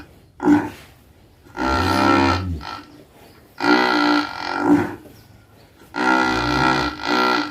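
A very large cow snoring in its sleep: a series of loud, pitched snores about a second long each, coming every second or two with short quiet gaps, two of them carrying a low rumble.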